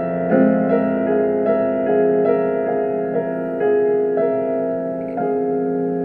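Piano playing sustained chords with a melody line, a new note struck about every half second, in the closing postlude of a Korean art song (gagok) accompaniment.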